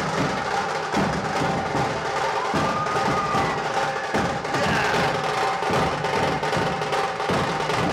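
Live dhol-tasha drumming: rapid, steady percussion from a traditional drum troupe, sharp stick strokes over deep drum beats.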